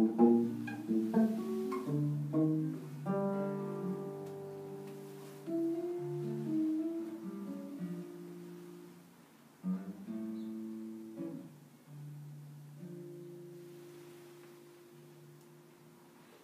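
Solo classical guitar: a quick run of plucked notes, then slower single notes and chords left to ring, the last long note fading away toward the end.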